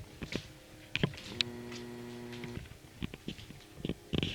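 Scattered soft taps and clicks of things being handled, with a steady low hum lasting about a second in the middle and a short rustle near the end.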